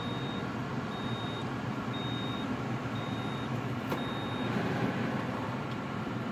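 John Deere tractor cab with the key on and the engine not yet started: the air-conditioning blower runs with a steady whirring drone, while a high warning beep sounds about once a second, five short beeps, then stops.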